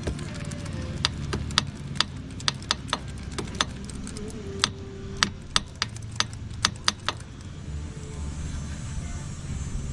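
Irregular sharp clicks and clinks of hand tools and small metal parts while a carburetor is being worked off, about twenty of them, stopping about seven seconds in. A steady low hum runs underneath.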